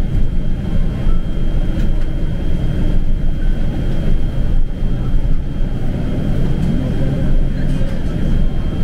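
Nova Bus LFS city bus running, heard from inside the cabin: a steady low engine and road rumble, with a thin steady high whine over it.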